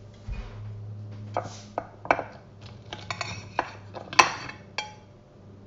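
A metal spoon knocking and clinking against dishes, a string of sharp clinks with the loudest about four seconds in. A low hum fades out about a second in.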